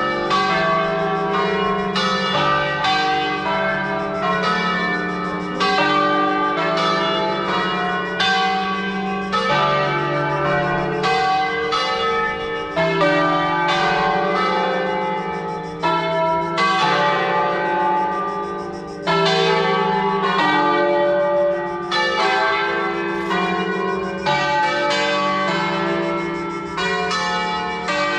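Church tower bells ringing the midday peal: several bells of different pitches struck in quick succession, about one to two strokes a second, each ringing on into the next.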